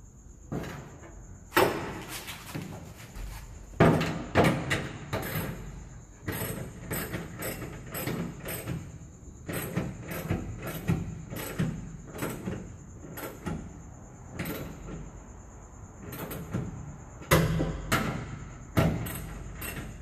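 Chevrolet Express van door being pushed upward and worked by hand to lift it back into line, with irregular metal clunks and rattles from the door and its padlock bracket plate. The loudest knocks come about one and a half seconds in, about four seconds in, and near the end.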